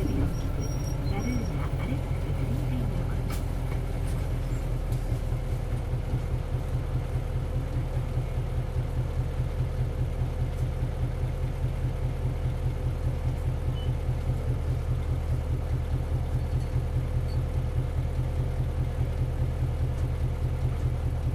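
Isuzu 8PE1-S V8 diesel engine of an Isuzu Cubic bus idling steadily with an even, fast throb, heard from inside the bus.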